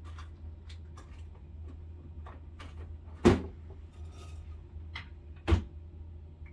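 Scattered light clicks and handling knocks, two of them much louder, about three and five and a half seconds in, over a steady low hum.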